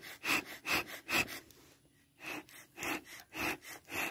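Bee smoker bellows pumped steadily, each squeeze pushing a puff of air through the smoker, about two and a half puffs a second with a brief pause a little past the middle.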